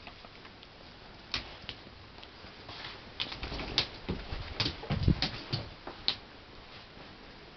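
A dog's claws clicking and paws thumping on a wooden floor as it gets up off its bed and moves about: scattered clicks at first, then a busy run of clicks with a few heavier thumps about four to five seconds in.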